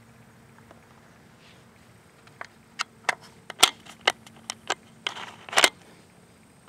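5.56 cartridges being thumbed one at a time into a plastic Zastava rifle magazine: a run of sharp clicks starting about two seconds in, then a longer scrape ending in a loud click near the end as a round is seated.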